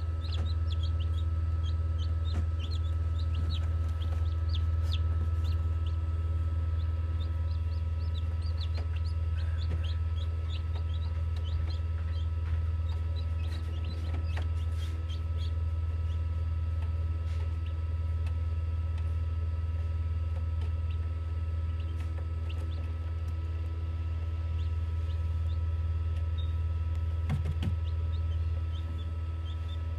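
Newly hatched chicks peeping in short high cheeps inside a Hovabator egg incubator, over the incubator's steady hum. The peeps come thick and fast in the first half and thin out later, with a few soft knocks near the middle and end.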